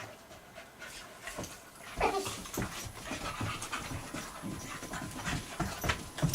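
Puppies panting hard and fast from rough play, a quick run of breaths, with one louder, sharp sound falling in pitch about two seconds in.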